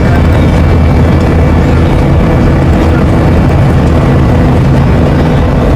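Loud, steady drone of an airliner in flight: a low engine hum under an even wash of noise.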